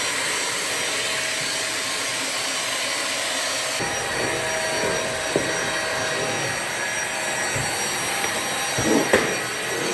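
Vacuum cleaner running steadily with a constant whooshing hiss. Its tone shifts slightly about four seconds in, with a brief click a little later and a couple of knocks near the end.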